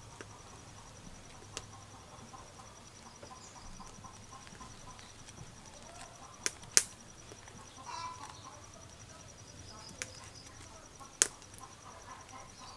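A few sharp clicks, the loudest about seven seconds in and another near eleven seconds, over a quiet background with a faint steady high whine and faint chicken clucking.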